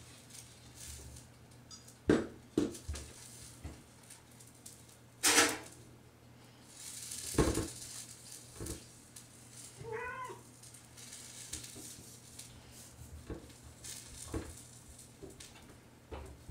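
Wooden kitchen cabinet doors knocking and rattling against their frames several times as a cat paws and pries at them, loudest about two and five seconds in. The cat gives one short meow about ten seconds in.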